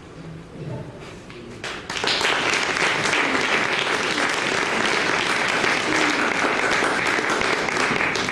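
Audience applauding, starting suddenly about two seconds in and keeping up steadily.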